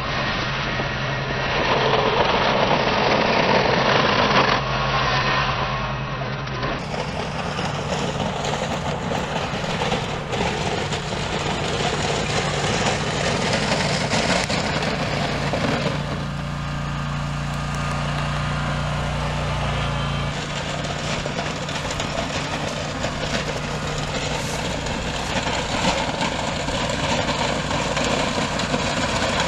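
Scag Tiger Cat zero-turn mower's engine running steadily as the mower drives along the driveway, pushing a front-mounted blade through the gravel.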